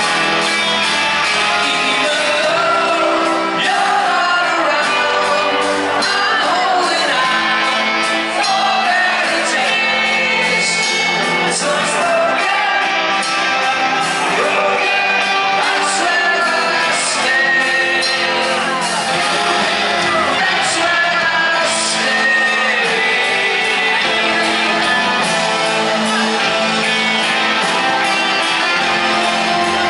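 A rock band playing live: a male lead vocalist singing over electric guitar, bass guitar and drums, heard through the PA in a large hall.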